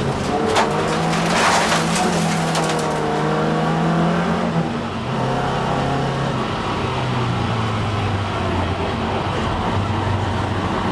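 Race car engine heard from inside the cabin, held at steady high revs, with sharp rattles and a hiss of loose dirt and gravel against the car in the first two seconds. About five seconds in the revs drop, and the engine runs on at lower, slowly falling revs.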